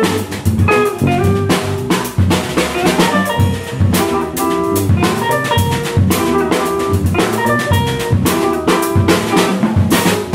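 Live funk-jazz trio of drum kit, electric bass and electric guitar playing a busy groove: Ludwig drums with snare and rimshot hits and bass drum, a walking bass line underneath, and short guitar chord stabs on top.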